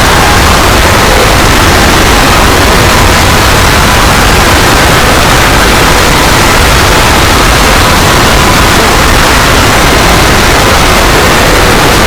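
Loud, steady noise like static, hissing evenly across all pitches at near full scale, with no change or break.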